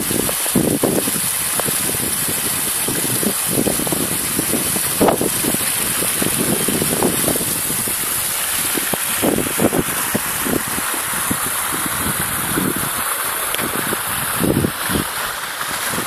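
Small rock waterfall splashing steadily into a pond, with irregular gusts of wind buffeting the microphone.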